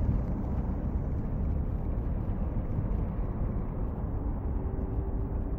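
Airbus A330's jet engines running at taxi power, a steady low rumble, with wind buffeting the microphone.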